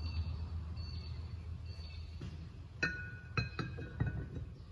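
Metal brake piston clinking against the disc-brake caliper as it is set into the bore on its new seal: a few light metallic taps with a brief ring, mostly in the second half.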